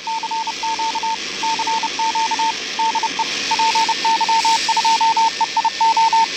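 Morse code: a mid-pitched beeping tone keyed in quick dots and dashes over a steady hiss of radio static.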